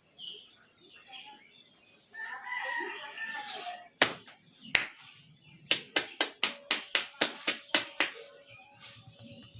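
Hands striking a head in a tapping massage: two single sharp slaps, then a quick run of about a dozen slaps at roughly five a second. Before them, a drawn-out call falls in pitch at its end.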